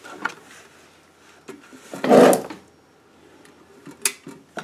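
Handling noise at a homemade battery load tester: a few sharp clicks and knocks as hands work at its cable plugs, with one louder rustle lasting about half a second about two seconds in.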